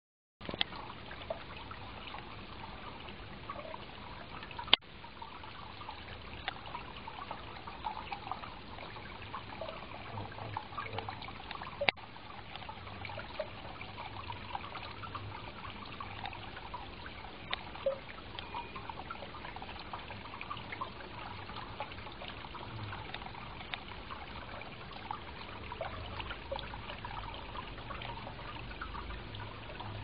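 Small decorative rock fountain: water trickling down artificial rockwork and splashing into its basin, a steady patter of small drips and splashes. Two sharp clicks stand out, about five seconds in and about twelve seconds in.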